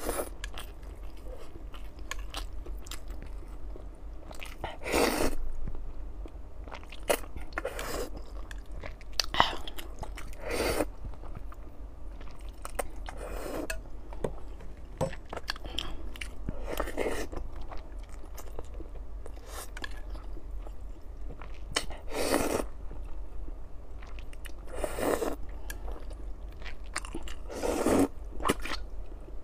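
Close-miked eating of hot and sour glass noodles: the noodles are slurped in short loud bursts about ten times, every two to three seconds, with wet chewing in between.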